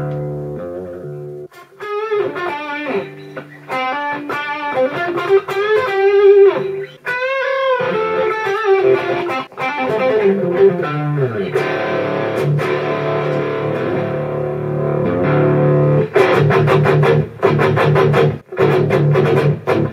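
Electric guitar played through a Fractal Audio Axe-Fx II amp modeller. It starts with picked single notes with bends and vibrato, moves to held ringing chords, and ends with fast, choppy muted chords.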